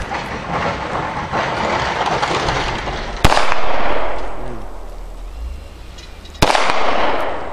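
Two gunshots about three seconds apart, each sharp crack trailing off in a long echo across the range.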